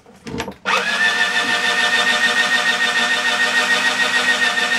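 Power drill spinning up about half a second in, then running at a steady speed. It turns a small bit on a long drill-bit extension, drilling up through a hole in the seat into the underside of a green ash Windsor chair arm.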